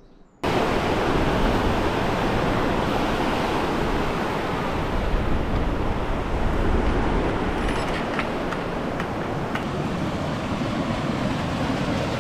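Loud, steady rushing noise that starts abruptly about half a second in, with a few faint ticks partway through.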